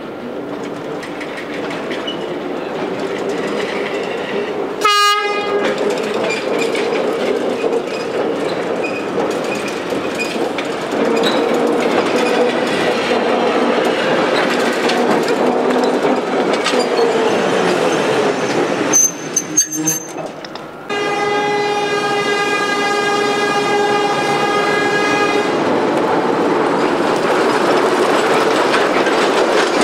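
Old narrow-gauge electric mining locomotive running with its wagons, wheels clattering over the track, growing louder as it comes near. It sounds its horn twice: a short blast about five seconds in and a long blast of about four seconds past the middle.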